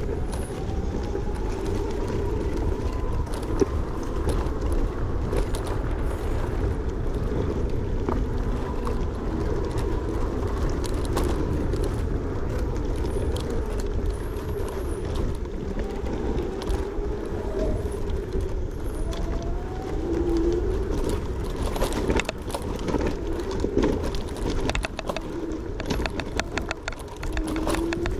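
Electric scooter ridden hard over rough woodland ground: the motor whines, its pitch rising and falling with speed, over a heavy rumble of wind and bumps, with frequent knocks and rattles from the terrain.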